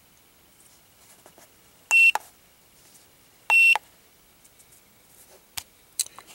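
Two short electronic beeps about a second and a half apart, from an OBD-II scan tool as it brings up a pending mass airflow sensor code, then a few faint clicks near the end.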